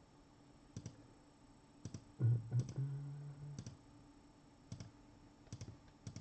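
Computer mouse clicking, single and double clicks every second or so. A short low hum from a voice comes about two seconds in.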